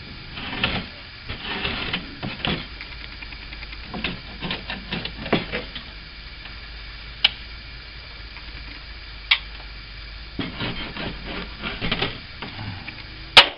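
Hand tools tapping and scraping on a wooden window frame during glazing work: short runs of quick clicks, with two single sharp clicks in the middle and a louder click near the end.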